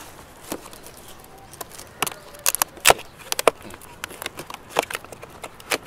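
Tucked-in tabs of a long, flat cardboard box being pried open by hand: a string of short, sharp cardboard snaps and scrapes at irregular intervals, the loudest about three seconds in.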